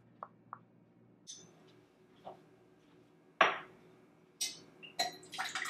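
A spoon clinking lightly against stemmed glass parfait dishes, with a sharp knock about three and a half seconds in and a short spell of clattering near the end.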